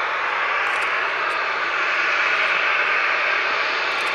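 Boeing 737-800 taxiing on its two CFM56-7B turbofan engines at taxi power: a steady jet hiss that swells slightly midway.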